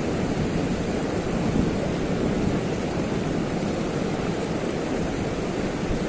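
Steady rushing noise of a fast-flowing river current, an even wash with no distinct events.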